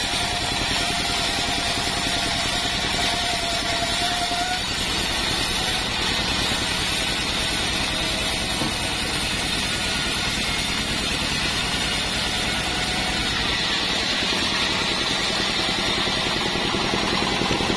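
Engine-driven portable band sawmill running steadily, a continuous mechanical drone with a faint high whine over its first few seconds.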